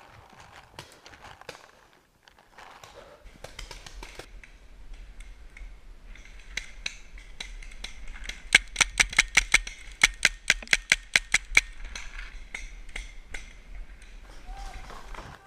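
Paintball marker firing a rapid string of about twenty sharp shots over some three seconds, roughly six a second, starting about halfway through. Before that, scattered faint clicks and rustling.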